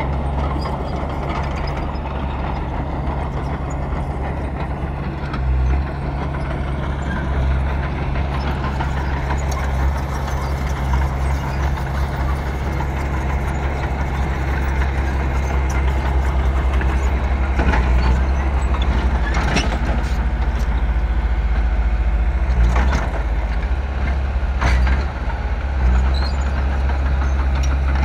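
Bulldozer's diesel engine running steadily at working revs, with several sharp metallic knocks in the second half.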